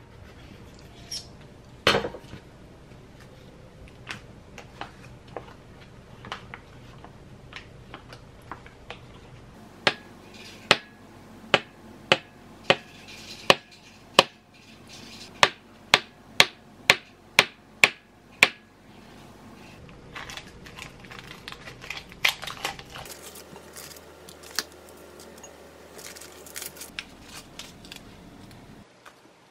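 A kitchen knife slicing a tube of soft tofu on a wooden cutting board: a steady run of sharp taps, about one and a half a second, as the blade meets the board through the middle. Before and after it come scattered knocks and clinks of dishes.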